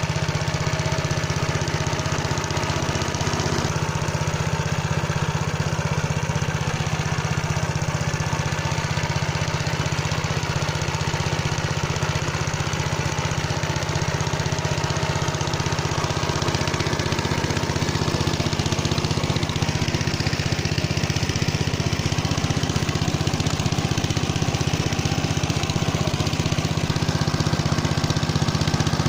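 Motor Sich walk-behind tractor's engine running steadily while it drives a rotary tiller through garden soil.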